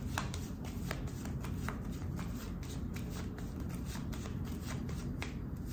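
A deck of playing cards being shuffled by hand: a run of soft, irregular card-on-card clicks and flicks, several a second.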